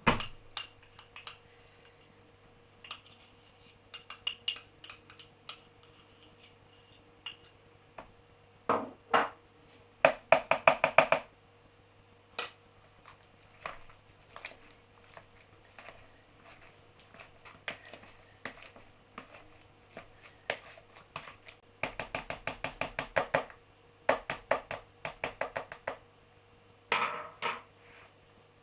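Potato masher working boiled potatoes and pumpkin in a glass bowl, knocking and clinking against the bowl. The strokes come scattered, with two quick runs of rapid strokes, about ten seconds in and again a little after twenty seconds.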